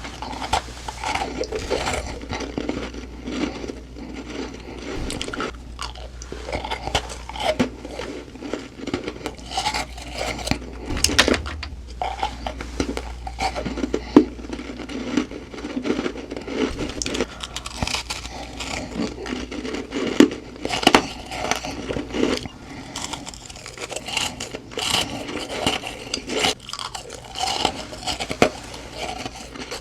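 Close-miked chewing of soft humidifier-frost ice: a steady run of crisp crunches and crackles, bite after bite.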